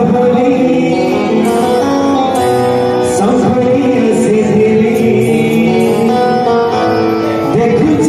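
Live Odia Jagannath bhajan: a man sings a devotional melody over keyboard and hand-drum (dholak and tabla) accompaniment.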